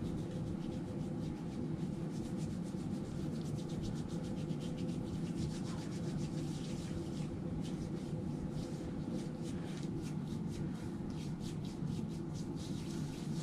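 Hands rubbing together with alcohol hand rub: a soft, continuous swishing of skin on skin, over a steady low room hum.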